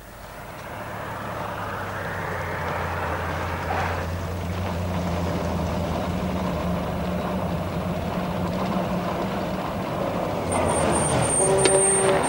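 Engine of a delivery step van running as the van drives along, growing louder over the first couple of seconds and then holding steady. Near the end a high, steady squeal and a few other tones come in over it.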